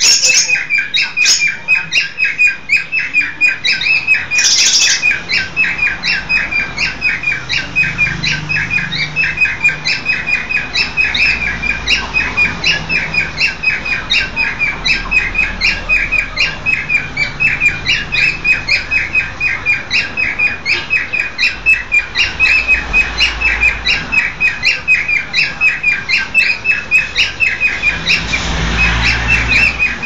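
Male pied cockatiel's courtship whistle: a fast, unbroken run of short, high whistled notes, about three to four a second, stopping just before the end.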